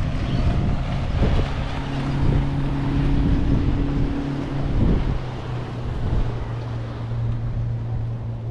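Motorboat engine running with a steady hum that drops to a lower note about five seconds in, under wind buffeting the microphone.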